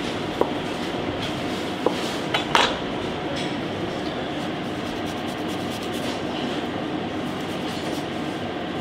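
Steady rushing background noise of a commercial kitchen, with a few light metallic clinks of utensils in the first three seconds.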